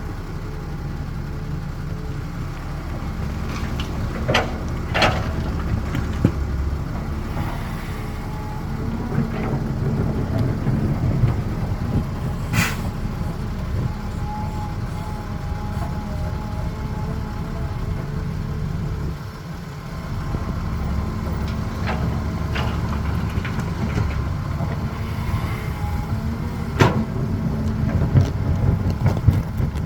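Caterpillar 320 excavator's diesel engine running steadily under load, rising and easing as it digs and loads a truck. Several sharp knocks or clanks break through the drone.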